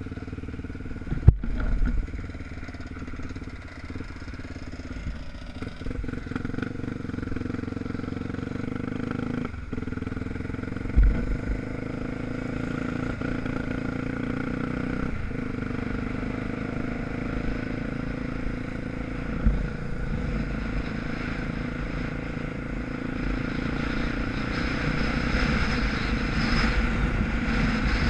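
Dirt bike engine running steadily under way, picked up by a camera mounted on the bike, getting louder near the end as it speeds up. A sharp knock about a second in and a couple of duller thumps later.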